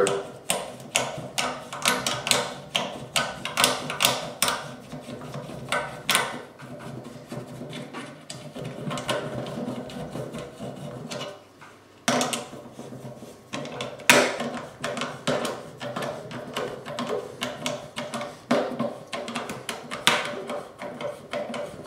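A 10 mm socket wrench turned by hand, driving a screw through a satellite dish's mounting bracket: rapid repeated clicks with some metal scraping, pausing briefly about halfway through.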